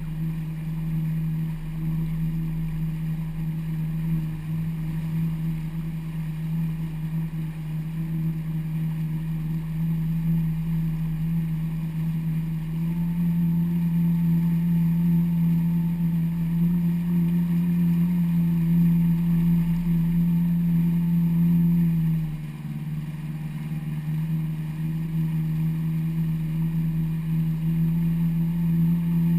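Yamaha WaveRunner personal watercraft engine running under way at a steady cruising throttle. Its note steps up a little about halfway through, then drops briefly as the throttle eases about three-quarters of the way in, before picking up again.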